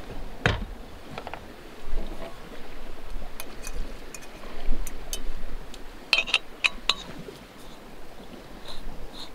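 Scattered light clinks and clicks of small hard objects being handled, with a quick run of them about six to seven seconds in, over a faint low rumble.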